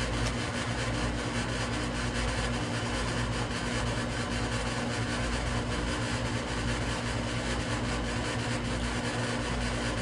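A steady low mechanical hum, like a running motor, holding an even level throughout with no breaks.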